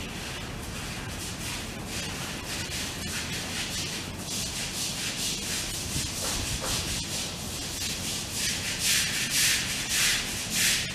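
Sulcata tortoises tearing and chewing fresh-cut grass: a steady dry rustling and crunching of stems, with several louder crunching bites over the last couple of seconds.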